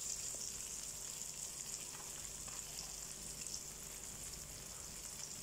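Unniyappam batter frying in sunflower oil in the wells of an unniyappam pan: a steady, soft, high sizzling hiss.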